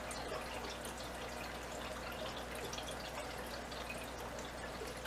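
Aquarium water trickling and dripping steadily, like a filter's outflow splashing into the tank, over a faint low hum.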